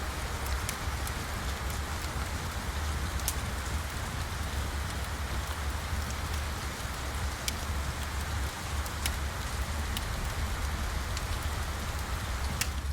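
Steady rain ambience with a low rumble underneath and scattered sharp clicks.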